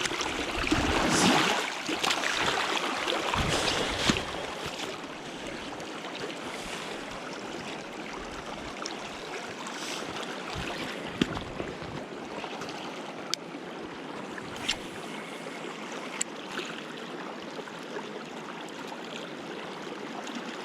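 Steady rushing of a river current over rocks, louder for the first few seconds, with a few faint clicks scattered through it.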